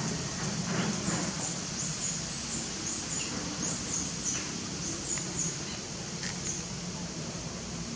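Outdoor ambience: a small bird chirping, short high-pitched chirps about three a second from about one second in until past five seconds, over a steady low background hum.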